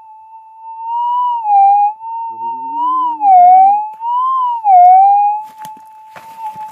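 Gold-prospecting metal detector's steady threshold hum, breaking into a loud warbling target signal that swings up and down in pitch three times as the coil passes over a buried metal target.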